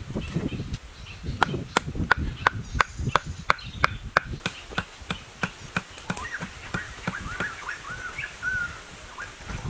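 Sharp, repeated knocks of hand-tool work, two or three a second, with low thuds beneath them, thinning out after about four seconds. From about six seconds in, small birds are chirping.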